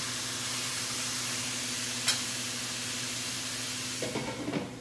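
Chicken pieces frying in a skillet on a gas stove: a steady sizzle while they are stirred with a spatula, with one sharp click about two seconds in. The sizzle thins near the end and a few faint knocks follow.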